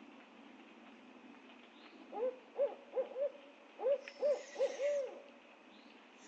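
Barred owl hooting: a rhythmic series of about eight hoots over some three seconds, each rising and falling slightly in pitch, the last one drawn out longer.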